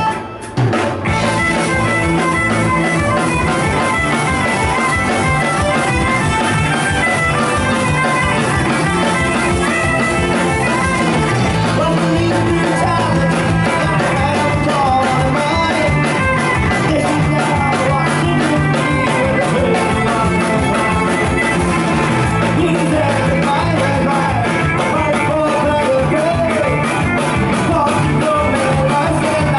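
Folk-punk band playing live: fiddle, acoustic guitar, mandolin, electric bass and drum kit, the whole band coming in together about a second in and playing on at a steady level.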